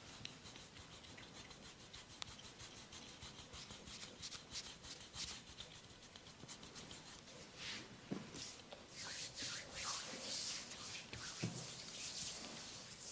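A masseur's hands rubbing and scratching during a massage, close to the microphone: fine, fast crackling strokes that turn into louder, fuller rubbing about eight seconds in, with a couple of soft thumps.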